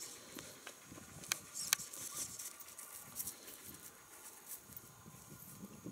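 Faint rustling with scattered light clicks: footsteps through dry grass.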